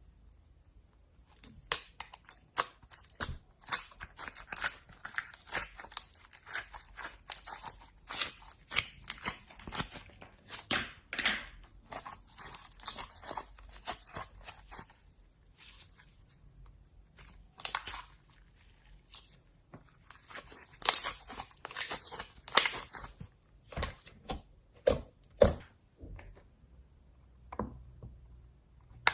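Slime being squeezed, stretched and poked by hand: bursts of irregular crackling and popping, with a few brief pauses.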